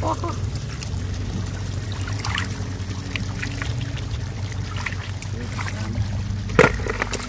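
Shallow water trickling and splashing as snails are lifted out by hand, over a steady low hum. About six and a half seconds in, a sharp knock as the snails drop into a plastic bucket.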